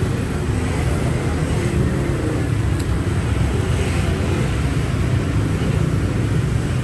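Steady rumble of heavy street traffic passing close by, with no single vehicle standing out.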